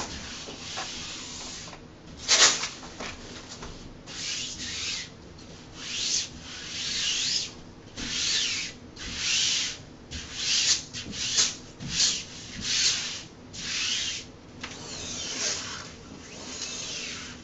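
Hand-smoothing strokes swishing across a self-adhesive wall-mural wrap, pressing it onto the wall to work out the air bubbles. About a dozen strokes, roughly one a second and closer together in the second half, with one short, louder swipe about two seconds in.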